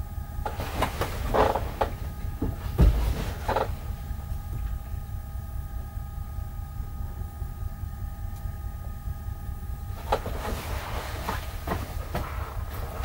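Diesel-electric freight locomotive idling, heard inside the cab as a steady low rumble with a faint steady whine through the middle. Clicks and knocks of controls and fittings being handled sound over it, the loudest a thump about three seconds in, with more near the end.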